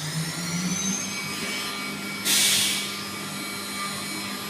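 CNC milling machine running: a steady hum with several thin, high whining tones, and a half-second burst of hiss a little over two seconds in.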